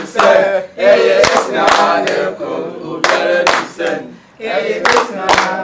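A group of voices singing together in a chant-like song, with hands clapping along.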